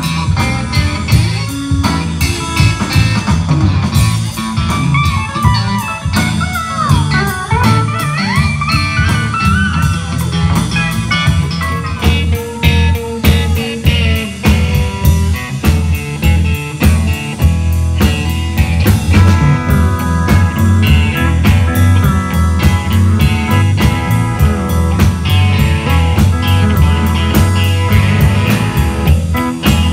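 Live band playing country-blues rock: electric guitar over bass guitar and a drum kit.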